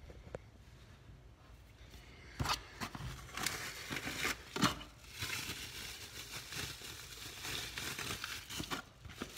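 Plastic wrapping crinkling and rustling in irregular bursts with a few sharp clicks, starting about two seconds in, as a new ignition coil is unwrapped.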